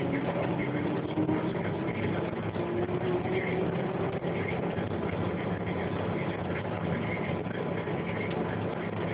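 Bus engine and drivetrain running while the bus drives along, heard from inside the cabin near the front: a steady low hum with a fainter whine that rises slightly in pitch.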